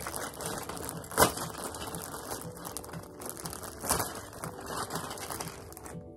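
Clear plastic bag of toy parts crinkling and rustling as it is handled, with a sharp crackle about a second in and another near four seconds.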